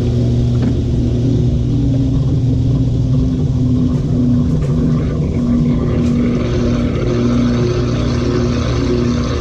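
LG 18 kg washing machine in its final spin with an overloaded drum: a steady motor hum under a pulsing whine, with a hiss that grows from about six seconds in.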